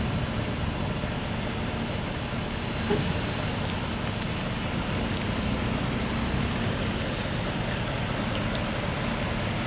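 A vehicle running steadily, with a few faint clicks.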